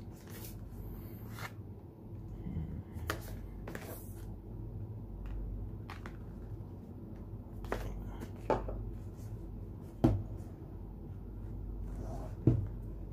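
Hands handling a new product box and its packaging during unboxing: scattered taps, knocks and rustles, the loudest about ten seconds in, over a steady low hum.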